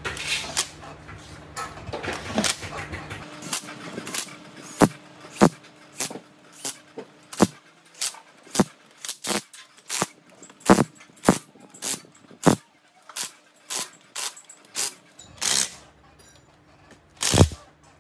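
Cordless power driver running bolts into an aluminium engine side cover, in a string of short sharp bursts about two a second. After a brief lull there is one last loud burst near the end.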